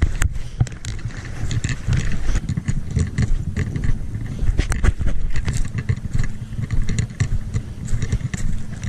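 Heavy wind buffeting the microphone in an uneven low rumble, with scattered knocks and scrapes of handling mixed in.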